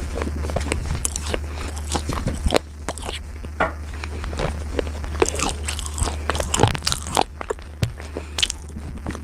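Slate being bitten and chewed: irregular, sharp crunching and crackling as the brittle slate breaks between the teeth, over a steady low hum.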